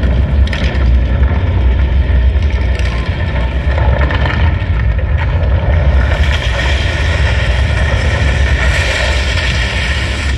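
Soundtrack of a building projection-mapping show played loud over large outdoor loudspeakers: a deep, steady bass rumble with sustained tones above it, growing brighter about six seconds in.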